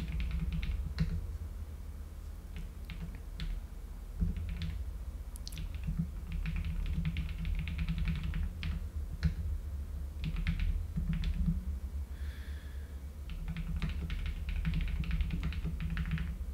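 Typing on a computer keyboard: irregular runs of quick keystrokes with short pauses between them, over a steady low hum.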